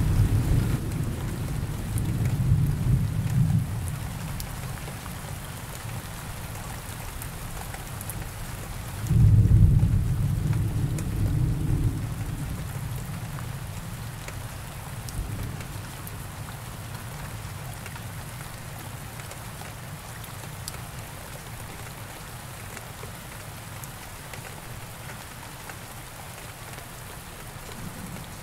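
Thunderstorm: steady rain with two rolls of deep thunder. One is already rumbling at the start and fades within a few seconds; a louder one breaks about nine seconds in and dies away by about thirteen seconds, leaving the rain alone.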